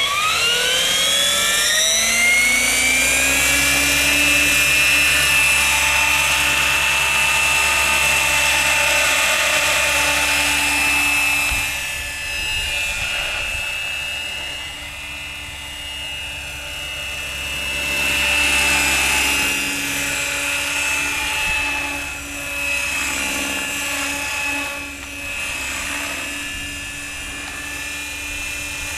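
Compass Atom 500 electric RC helicopter spooling up, its motor and gear whine rising in pitch over the first two seconds or so, then holding a steady high whine with rotor noise as it flies. From about twelve seconds in the sound rises and falls in loudness as the helicopter moves about.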